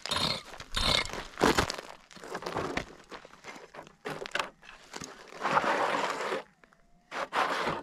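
Small prospecting pick digging into stony, gravelly dirt: irregular crunching strikes and scrapes of loose gravel, with a longer stretch of scraping a little past halfway.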